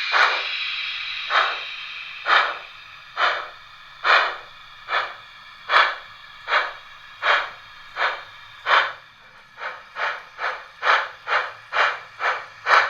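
Steam-exhaust chuffs from the sound decoder of a Märklin H0 class 18 model steam locomotive: slow at first, about one a second, then quickening to over two a second from about ten seconds in as the locomotive gathers speed. A steady hiss fades away over the first second or two.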